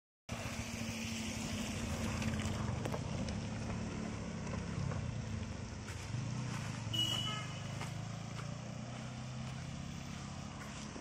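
Road traffic passing on a wet road: car and motorcycle engines running with a steady low hum and hiss. A brief high tone sounds about seven seconds in.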